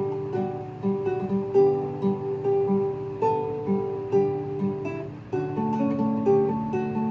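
Acoustic guitar music: plucked notes in a steady, gentle rhythm, shifting to a new chord a little past the middle.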